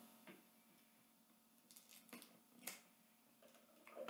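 Near silence with a few faint clicks of a pair of scissors being handled, the loudest a little under three seconds in.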